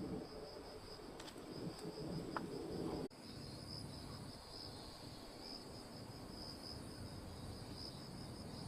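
Crickets chirring steadily in one continuous high-pitched trill, over a faint low rumble.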